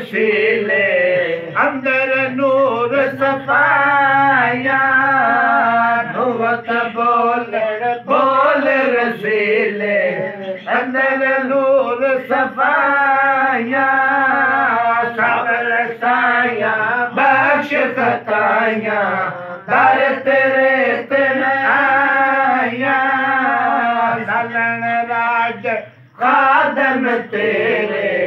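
A man singing a naat, an Urdu/Punjabi devotional poem in praise of the Prophet, in a chanting style with long, wavering held notes and short pauses for breath.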